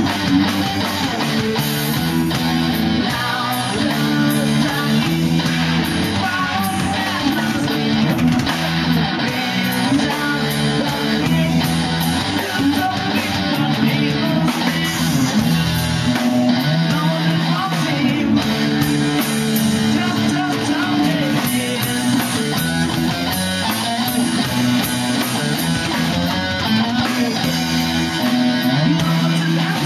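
Rock music led by guitar, with held chords changing every second or two at a steady level.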